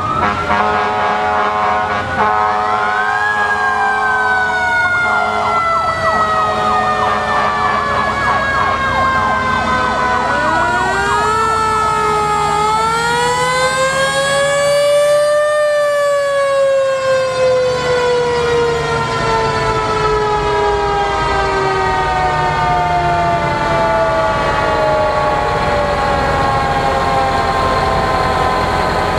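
Several antique fire trucks' sirens wailing at once, each winding up quickly in pitch and then winding down slowly, overlapping one another. Under them is the low running of the truck engines.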